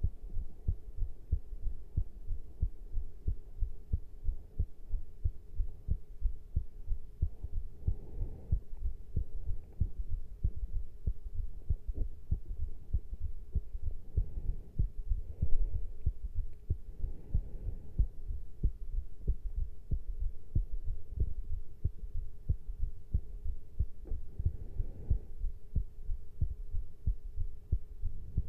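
Human heartbeat after caffeine intake: a steady, continuous run of low thumps, with a faint hum underneath and a few soft whooshing noises.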